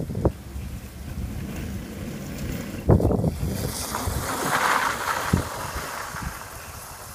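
Modified 36-volt Power Wheels Lightning McQueen ride-on car driving past on a dirt path, its tyres crackling over grit, loudest as it passes about four seconds in and fading as it drives away. A single knock about three seconds in, with wind rumbling on the microphone.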